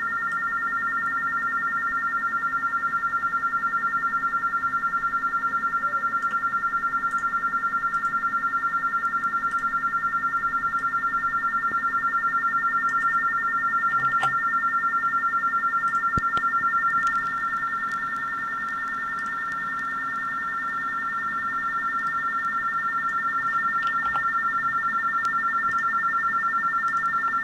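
RTTY data signal from an NTX2 radio transmitter keyed by an Arduino, heard through a radio receiver: two steady tones a few hundred hertz apart, switching rapidly back and forth in a fast, even warble. It fades a little past the middle, then comes back.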